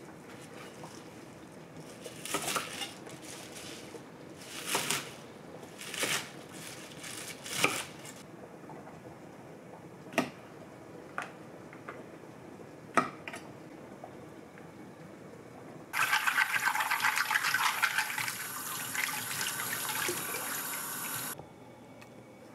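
Kitchen tap running for about five seconds, turned on sharply past the middle and shut off near the end. Before it come several short rustling bursts and a few light clicks of vegetables and utensils being handled.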